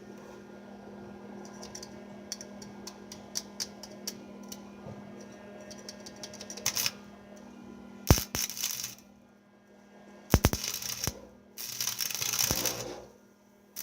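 Arc welder crackling in three short runs of about a second each in the second half, building up weld inside a nut set over a broken wheel-hub stud. Before that come scattered sharp clicks over a steady low hum.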